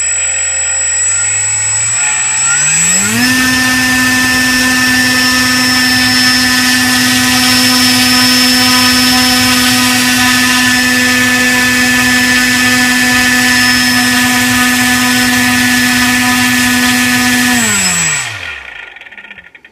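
DJI 2212 920KV brushless outboard motor driving a propeller in a thrust test. It spins up over about three seconds with a rising whine, then runs loud and steady at high throttle. Near the end it spins down and stops.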